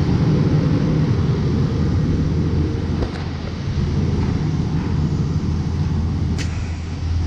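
2019+ Ford Ranger's 2.3-litre EcoBoost four-cylinder idling steadily just after a fresh oil change, with a sharp click about six seconds in.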